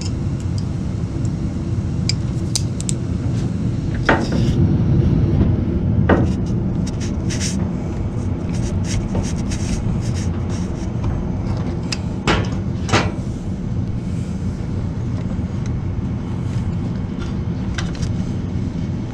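Irregular sharp metallic clicks and clanks of a hose clamp being fitted onto a hose at a washing machine's water valve, over a steady low rumble.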